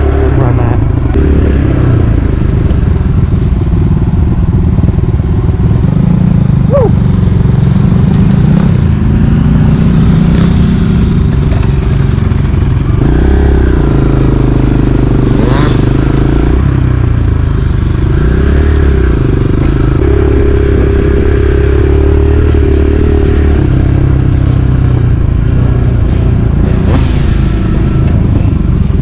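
Dirt bike engine running loud as the bike is ridden, its pitch stepping up and down every few seconds.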